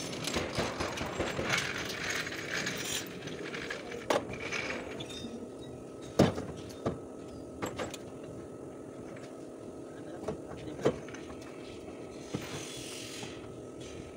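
Metal clanks, knocks and rattles from hand work on a stripped car body, with a sharp knock about six seconds in and a short hiss near the end.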